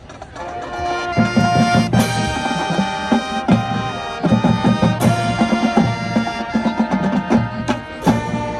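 High school marching band playing, with brass and drums swelling in about a second in. Three sharp percussion crashes punctuate the music, about three seconds apart.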